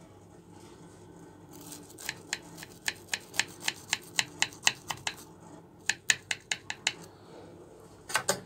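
Knife cutting through the crisp, syrup-soaked crust of a baked kunafa (shredded-pastry dessert), giving a run of sharp crunching crackles at about four a second. The crackles start about two seconds in and stop around seven seconds, with a short burst more near the end.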